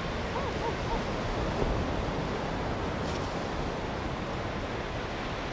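Steady rush of ocean surf on a beach, mixed with wind. A few faint wavering tones come in the first second.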